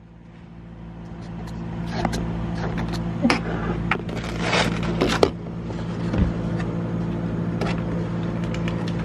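A steady low hum with scattered clicks, knocks and scrapes; the loudest is a sharp knock about five seconds in.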